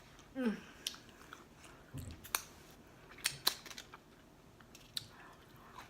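Close-miked chewing and mouth noises from a person finishing a mouthful of food: scattered sharp clicks and smacks, with a brief falling hum of the voice about half a second in.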